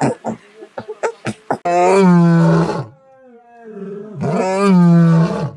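A large animal roaring twice: two long, loud calls, each over a second, with a quieter groan between them, after some short choppy sounds at the start.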